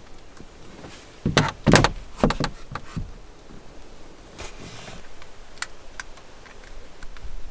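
Hands handling fittings in a car cabin: a quick cluster of dull thumps and knocks, then a few lighter clicks, as the roof lights are switched on.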